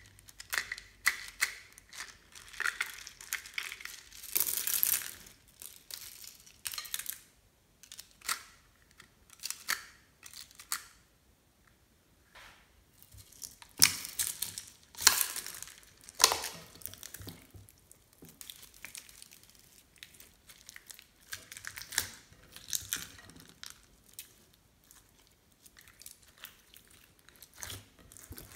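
Hands pressing and folding glossy slime with plastic beads and floam mixed in: irregular sticky clicks and crackles, with a few louder bursts, the strongest about halfway through.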